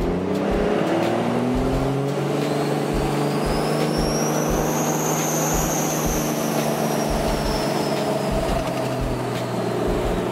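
Cummins diesel pickup with compound turbochargers accelerating hard, heard from inside the cab. The engine note climbs over the first couple of seconds, then the turbo whistle rises to a peak around the middle and eases back down near the end.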